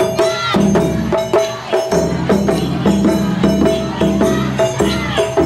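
Japanese festival parade music: a quick, steady beat of sharp metallic and wooden percussion strikes that ring on, over sustained held tones.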